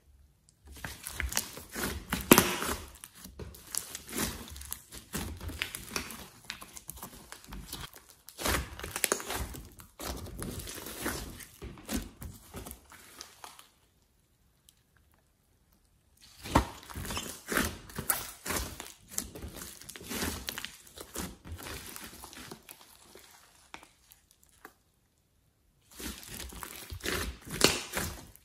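Thick clay-mixed slime being squeezed, stretched and pressed by hand, with dense crackling and popping from trapped air bubbles. It comes in three stretches broken by two short dead-silent gaps, the first about halfway through.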